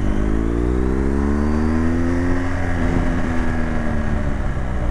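BMW R1200 GSA's boxer-twin engine accelerating as the bike pulls away. Its pitch rises over the first two seconds or so, then holds and eases off toward the end.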